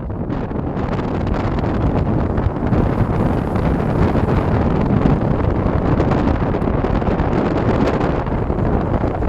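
A 4x4 ploughing through deep floodwater: a loud, steady rush of water splashing and surging against the vehicle, building over the first second.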